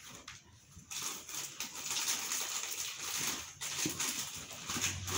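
A cardboard box being opened by hand: its flaps and the plastic wrapping inside rustle and crinkle irregularly, starting about a second in.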